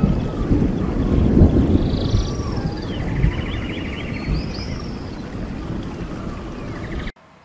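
Channel-intro sound effect: a low rumble that slowly fades, with high gliding calls and fast buzzy trills over it, ending with a sudden cut-off about seven seconds in.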